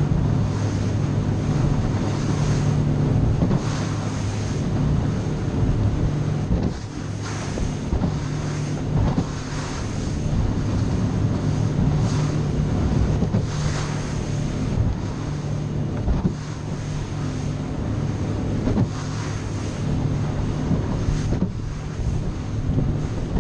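Cobia 237 center-console boat under way: its outboard motor drones steadily while wind buffets the microphone and water rushes and slaps against the hull.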